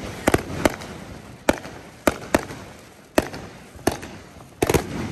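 Fireworks going off: a run of sharp bangs, about ten in five seconds at uneven spacing, some in quick pairs, each trailing off briefly.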